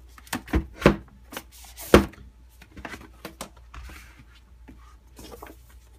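Cardboard packaging being handled: a few sharp knocks and taps in the first two seconds as the inner box is pulled from the outer carton, the loudest about two seconds in, then soft rustling and light taps of card and paper.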